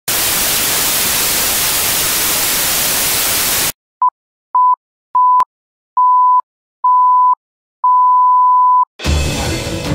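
Television static hissing loudly for almost four seconds, cutting off sharply. Then a film-countdown intro of six steady mid-pitched beeps with silence between them, each beep longer than the last, the final one about a second long; near the end the sound of the room cuts in.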